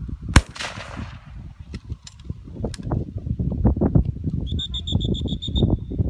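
A single shotgun shot, sharp with a short echo, just after the start. About four and a half seconds in comes a quick run of about eight high, evenly spaced beeps, over a low, uneven rumble.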